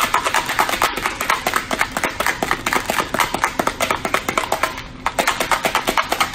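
Pentagon pieces with magnets set in their edges rattling and clacking inside a clear plastic tub as it is shaken back and forth, a steady run of clicks about five or six a second. The shaking feeds the pieces energy so that they knock together and snap into a model virus capsid.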